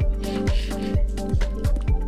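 Background electronic music with a steady kick-drum beat, about three beats a second.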